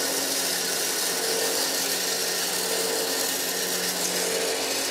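HELI 9FC-21 self-priming grain grinder running steadily: a motor hum under an even rushing hiss as the machine sucks maize kernels up its feed pipe and mills them into flour.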